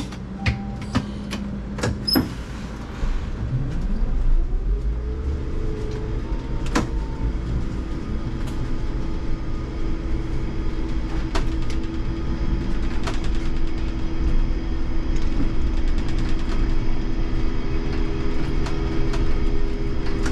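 IMC Hess Lightram 19 DC trolleybus pulling away from a stop, with a few clicks and knocks in the first two seconds. About three seconds in, the electric traction drive's whine rises in pitch, then settles into a steady hum over road and body rumble as the bus runs along the street.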